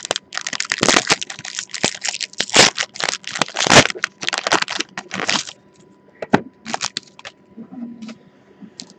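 Foil trading-card pack wrapper being torn open and crinkled by hand: dense crinkling and crackling for about five and a half seconds, then a few scattered light clicks.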